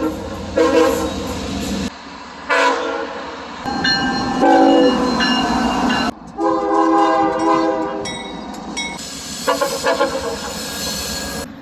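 Train horns sounding a series of blasts, each a chord of several notes, over the rumble of a train. The horn sound changes abruptly about two and six seconds in, as different horns follow one another.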